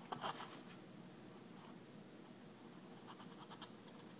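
Scratching and rustling on a cardboard box as a cat paws at a toy mouse held at the box's edge: a short burst of scratches near the start, then a few light scratches about three seconds in.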